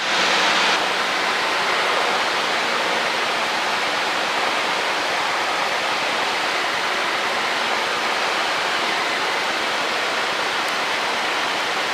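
Steady, even hiss of Cessna 152 cabin noise in flight: engine, propeller and airflow, with no break or change. It is a little brighter for the first second.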